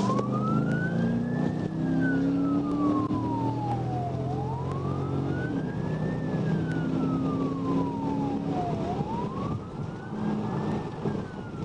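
Police car siren in a slow wail, rising and falling about every four and a half seconds, over the patrol car's engine and road noise.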